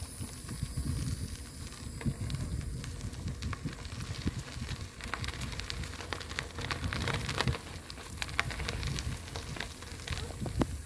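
Bicycle tyres rolling over a sandy dirt track, with a steady low rumble and a run of crackling ticks from about five to eight seconds in.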